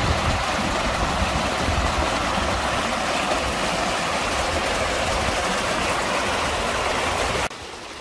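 Small waterfall and shallow stream rushing over rocks: a steady, even rush of water. Near the end it cuts suddenly to a quieter flow.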